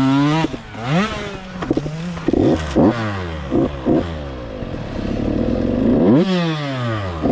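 Dirt bike engine on a motocross track, revving hard and being blipped on and off the throttle. Its pitch falls away for about two seconds as the bike goes up and over a jump, then rises sharply near the end as the throttle is opened again.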